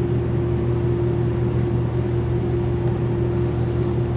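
A steady machine hum: a low drone with a constant higher tone over it, unchanging in level.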